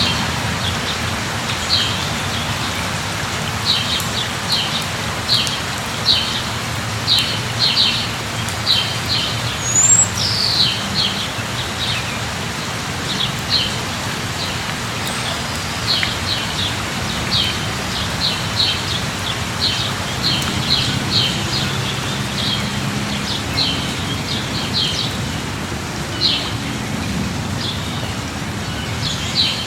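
Steady light rain falling, with a bird calling in many short, high chirps throughout.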